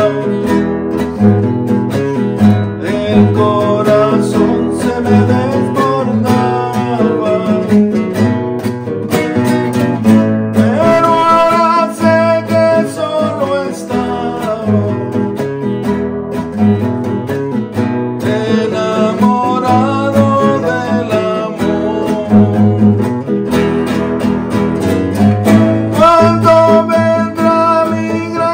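Acoustic guitar playing an instrumental break in a song, with strummed chords under a melody line.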